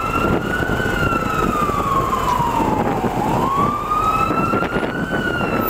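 An emergency vehicle's siren wailing, rising and falling slowly about every three seconds, over steady city street traffic noise.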